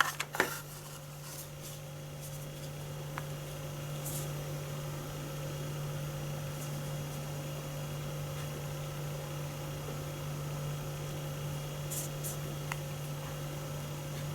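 Steady low electrical hum over room noise, with a few sharp clicks in the first half second and faint taps later on.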